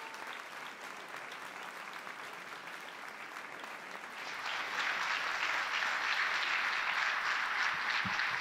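Audience applauding, swelling louder about halfway through.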